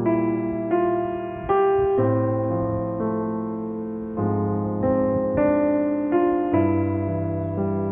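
Slow, gentle background piano music: single notes and chords struck about once every half second to second, each fading before the next.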